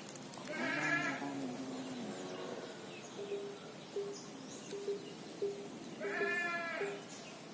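An animal bleating twice, a wavering call about half a second in and again about six seconds in, with a short note repeating about twice a second in between.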